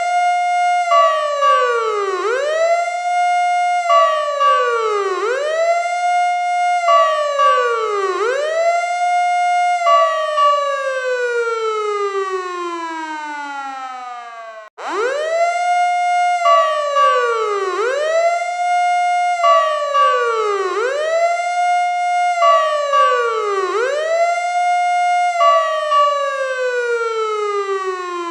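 Fire truck siren wailing. The pitch climbs quickly, holds high, then slides down, about four times at roughly 3-second intervals, and then falls slowly over several seconds. About halfway through it cuts off abruptly and starts the same cycle over.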